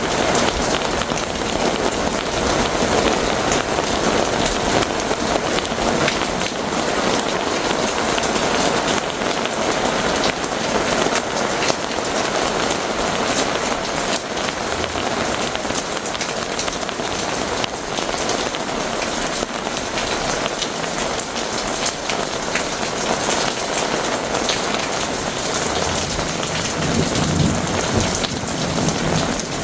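Heavy rain pouring steadily in a thunderstorm, with drops ticking close by and a low rumble of thunder near the end.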